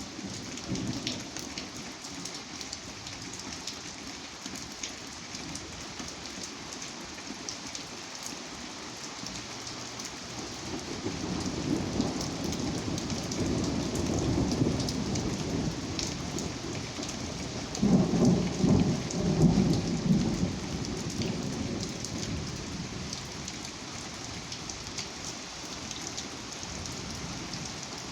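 Steady rain falling, with a constant hiss and scattered drop ticks, and a roll of thunder that builds from about a third of the way in, rumbles loudest a little past the middle, then dies away.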